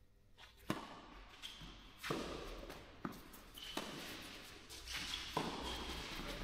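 Tennis rally on an indoor clay court: a serve struck about a second in, then about four more sharp ball strikes and bounces, each echoing briefly in the large hall, with footsteps shuffling on the clay between shots.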